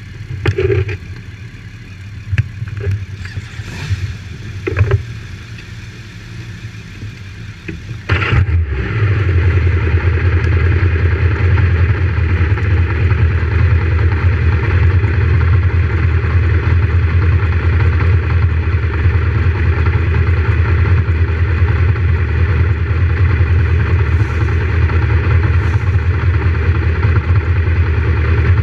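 A few short knocks and clicks, then about eight seconds in a Suzuki sport motorcycle's engine starts and settles into a steady idle.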